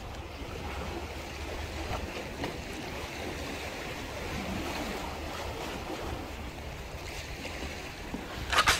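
Wind rumbling on the microphone over the wash of small sea waves against concrete breakwater tetrapods, with a brief sharp clatter near the end.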